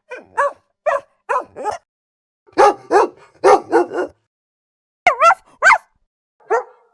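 AI-generated dog-barking sound effects from ElevenLabs, played back one version after another. Each is a short run of barks, with silent gaps between the versions.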